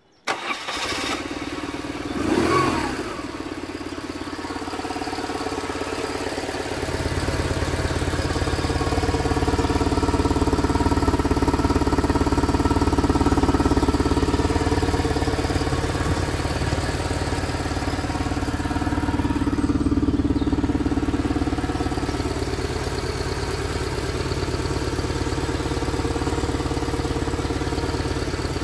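1998 BMW R850R's stock 848 cc boxer twin starting up abruptly, blipped once about two seconds in, then idling steadily on its standard exhaust. The idle sounds louder and deeper from about seven seconds in.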